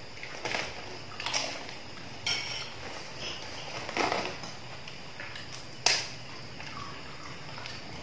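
Mealtime clatter: spoons clinking on plates and a few sharp knocks, the loudest about six seconds in, over a steady high chirring of crickets.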